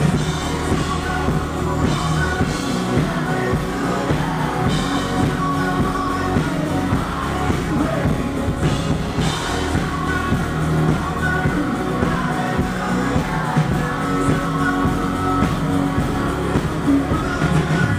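Live Christian rock band playing a worship song: a singer over electric guitar and a drum kit, loud and continuous.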